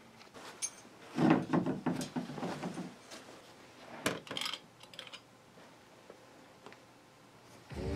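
Handling noise of a hand taking something from the hooks and nails on a wooden frame: soft rustling with light knocks and clicks through the second and third seconds, then a few sharper clicks about four seconds in.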